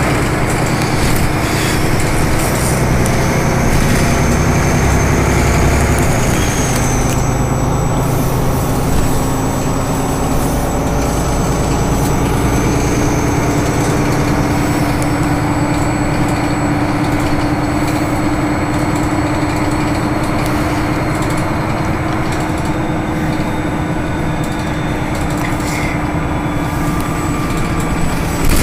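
Solaris Urbino 18 articulated city bus heard from inside the passenger cabin while it drives: a steady low drone of engine and drivetrain with road noise, and a whine that climbs slightly in pitch about a third of the way in and then holds.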